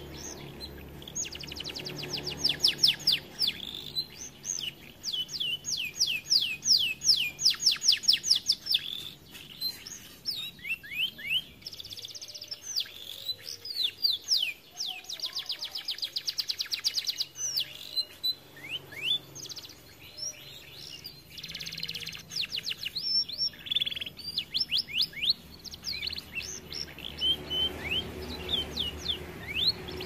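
Canary singing: long, fast trills of short falling whistled notes, many to the second, in several runs broken by brief pauses.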